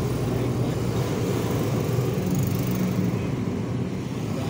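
Vehicle engine running steadily, a low, even drone.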